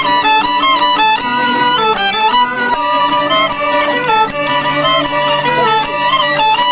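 Traditional Chinese music: an erhu-type two-string bowed fiddle plays a stepping melody, with other instruments sounding along with it.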